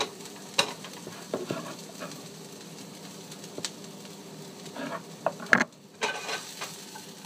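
A spatula stirring and scraping food in a hot nonstick frying pan over a faint sizzle, with several sharp knocks of the spatula against the pan.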